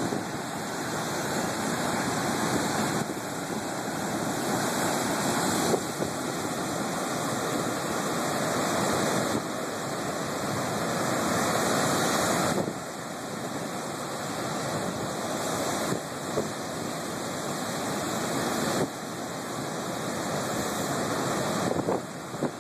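Pacific high-surf waves crashing and washing over a rocky shore, a continuous roar that swells and eases every few seconds.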